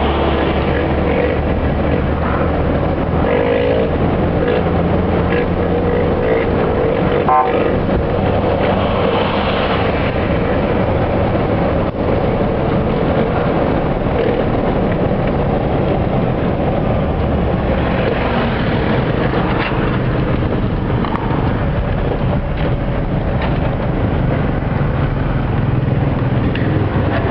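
Car driving, heard from inside the cabin: steady engine, tyre and wind noise. A brief pitched sound comes about seven seconds in.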